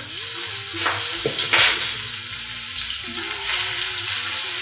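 Chopped leeks sizzling in hot cooking oil in a frying pan while being stirred, a steady frying hiss with a sharp clatter of the utensil about a second and a half in.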